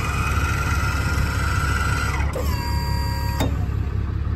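Auto Crane service-truck crane's drive motor whining steadily as it runs a function. About two seconds in the whine drops in pitch, and a lower tone ends in a sharp click a little over three seconds in. A steady low rumble runs underneath.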